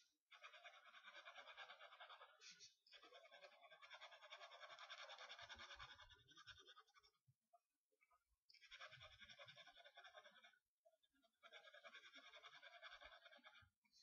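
A pen scribbled rapidly back and forth on paper, shading in an area of a drawing, in three long spells with short pauses between them.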